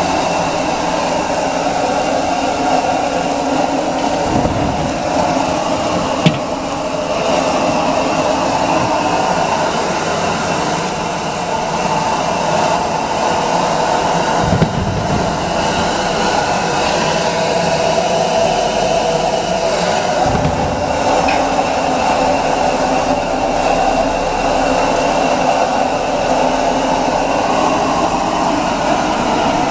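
Loud, steady machine-like rushing noise, like a fan or burner, with a sharp click about six seconds in and another a little before midway.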